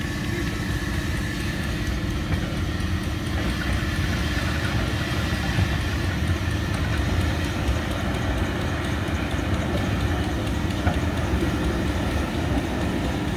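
Snaefell Mountain Railway electric tramcar rolling slowly past on its rails, a low rumble of wheels and running gear under a steady hum from its electric traction equipment.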